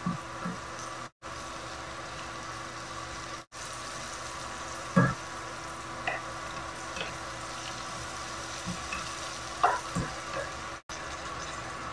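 Onion and garlic sizzling steadily in oil in a nonstick wok while they are stirred with a wooden spatula, with a few sharp knocks against the pan, the loudest about five seconds in and near the end, as tomatoes and chicken pieces are pushed into it. The sizzle breaks off for an instant a few times.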